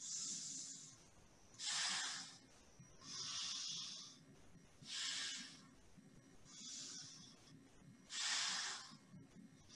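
Alternate-nostril breathing: air hissing through one nostril at a time, a finger holding the other closed, in six slow breaths in and out, each about a second long.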